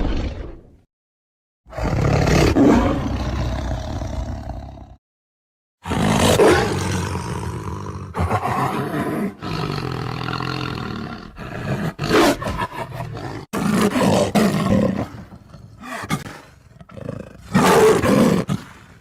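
Tiger roaring and growling in repeated bouts: one roar fades out at the start, another follows about two seconds in, and after a short silence a longer string of roars and growls with brief breaks runs to near the end.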